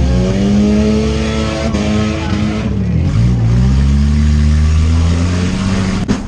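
Four-cylinder demolition derby car engine revving hard, its pitch climbing, dropping away about three seconds in, then climbing again. A sharp knock near the end.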